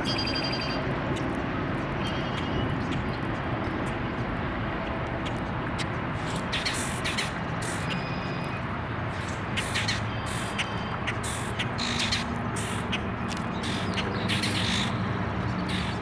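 Park ambience of birds calling over a steady low hum of traffic. A few thin chirps come in the first two seconds; from about six seconds in, a run of short, scratchy bird calls follows, several a second at times.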